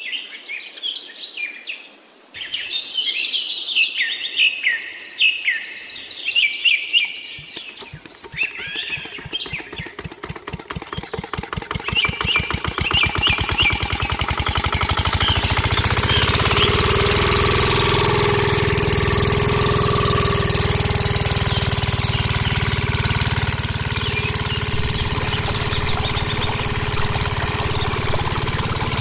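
Single-cylinder diesel water-pump engine cranked to a start: slow, separate chugs quicken over several seconds and settle into a steady run. Bird chirps come before the chugs begin.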